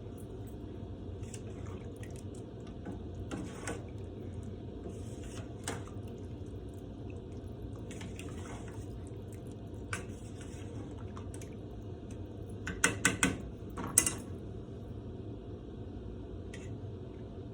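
Pot of pork ribs and tofu in broth boiling on the stove, with scattered clinks of a utensil against the pot. A quick run of louder clinks comes near the end.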